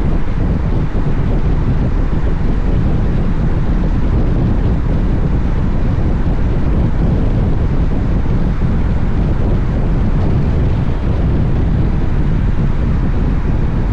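Steady, heavy wind rumble on the camera microphone of a Honda X-ADV motorcycle riding at speed, with the bike's running and road noise mixed under it.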